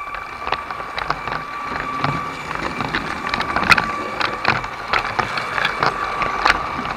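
LEGO train running along plastic track: a steady electric motor whine under a rapid, irregular clicking and clattering of the wheels on the track.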